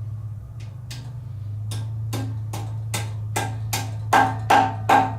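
Hammer tapping a head dowel pin back down into the deck of an LS4 5.3 aluminium engine block: a steady series of sharp metallic taps, about two or three a second. The taps grow harder and ring in the last second and a half.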